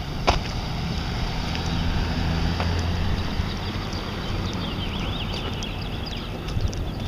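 Wind rumbling on the microphone over a low, steady engine hum, with a single sharp click just after the start and faint high chirping in the last few seconds.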